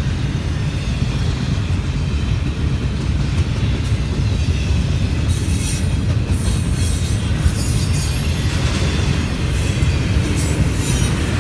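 Train passing close by: a steady heavy rumble of the rolling cars, with high squeals coming and going from about halfway through.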